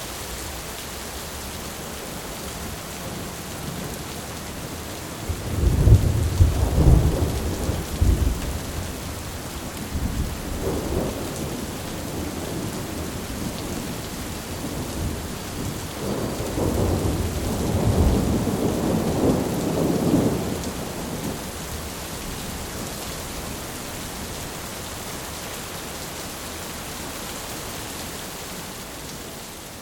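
Steady heavy rain with rolling thunder: a loud crack-and-rumble about five seconds in, a smaller peal around ten seconds, and a long rumble from about sixteen to twenty-one seconds, then rain alone fading toward the end.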